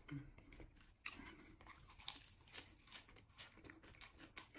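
Quiet, crunchy food being bitten and chewed close to the microphone: a string of irregular crisp crunches, the sharpest about two seconds in.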